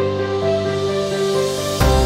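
Background music of held, sustained chords; a deep bass note enters with a short bright hit near the end.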